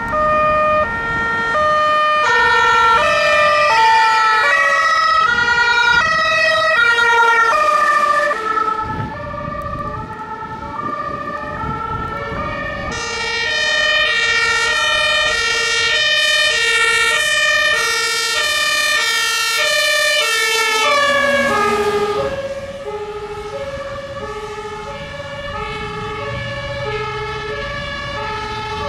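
Two-tone German emergency-vehicle sirens (Martinshorn) from a convoy of fire engines and a command car driving past. Several sirens overlap out of step, and their pitch drops about two-thirds of the way through as one passes. Engine and wet-tyre noise run underneath.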